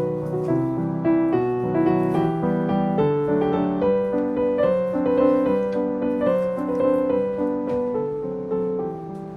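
Background piano music: a melody of short notes over held lower chords.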